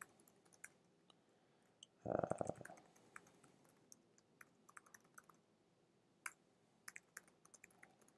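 Faint typing on a computer keyboard: quick, irregular key clicks as text is entered. A brief, louder low rumble comes about two seconds in.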